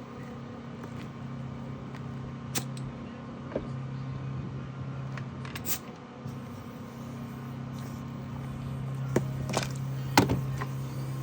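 A steady low hum from a running machine, with about six sharp clicks and knocks, the loudest about ten seconds in.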